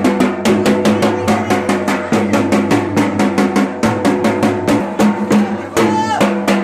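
Large processional drum beaten with sticks in a quick, even beat, several strokes a second, over steady held musical tones.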